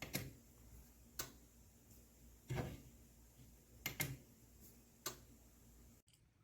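Wireless remote-control outlet switch clicking on and off: sharp single clicks about a second apart, with a quick double click about four seconds in.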